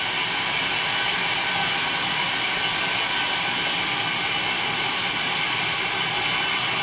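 Electric food processor motor running steadily as it purées cooked chickpeas.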